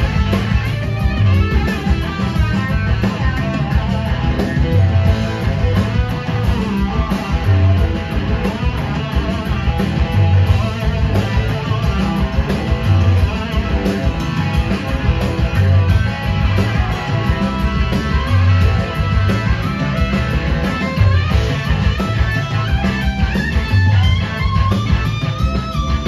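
Live blues-rock band playing an instrumental passage with electric guitars out front over bass, drums and organ. The bass notes pulse steadily underneath.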